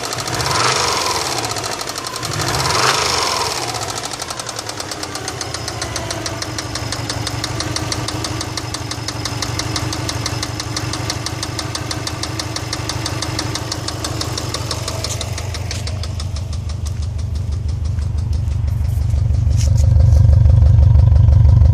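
Subaru EJ206 flat-four engine running with a steady rhythmic knock, the fault being investigated. It is revved briefly twice in the first few seconds, then settles to idle, and the low rumble grows louder near the end.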